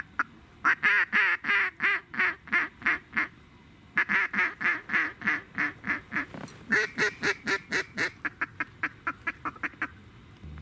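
Mallard duck call blown in three long runs of rapid hen-style quacks, about four to six a second, the last run trailing off.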